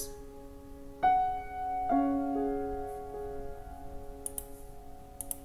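Background piano music: soft chords struck about a second in and again near two seconds, ringing out and slowly fading. A few faint clicks near the end.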